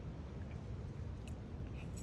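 A Schipperke dog paddling in shallow water: a few faint, soft splashes over a low, steady rumble.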